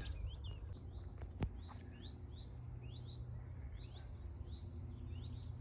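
Common chiffchaff giving its alarm call: a short rising 'hweet' note repeated again and again. A single click sounds about one and a half seconds in.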